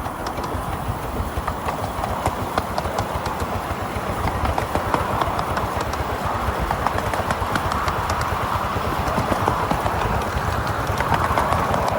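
Miniature railway train running along the track, its wheels making a rapid, uneven clicking over the rail joints, growing a little louder toward the end.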